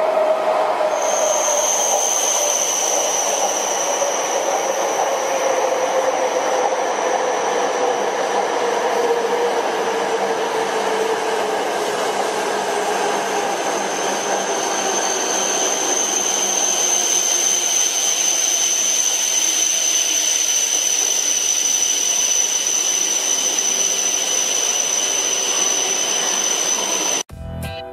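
E5-series Shinkansen bullet train running along a station track: a steady rush of wheels and air with a tone that slowly falls in pitch, and a steady high whine over it. The sound cuts off abruptly near the end.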